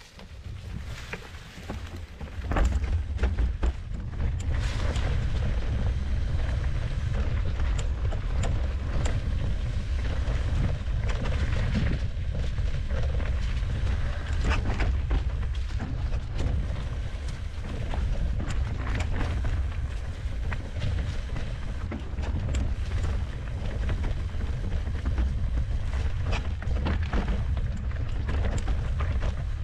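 Mountain bike riding a rocky singletrack covered in dry leaves, heard from a camera on the bike: steady wind rumble on the microphone, with tyres rolling over leaves and rocks and scattered clicks and rattles from the bike over bumps. The rumble picks up a couple of seconds in as the bike gathers speed.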